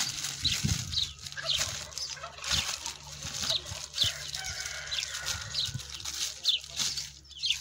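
Birds chirping: short falling chirps about twice a second. Beneath them, the crinkle and rustle of a clear plastic bag being handled around a branch.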